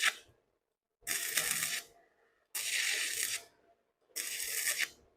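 Electric welding arc from a SEKKO 250A MIG/stick welder crackling in four short bursts of under a second each, with silence between: repeated tack welds.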